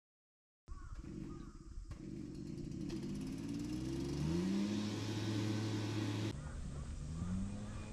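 A vehicle engine speeding up, its pitch rising and then holding steady. It cuts off suddenly about six seconds in and starts rising again soon after.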